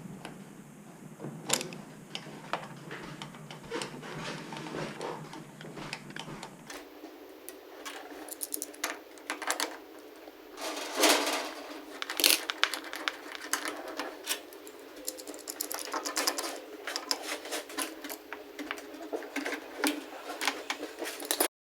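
Irregular light clicks, taps and rattles of small hard objects being handled, with louder clacks about 11 and 12 seconds in.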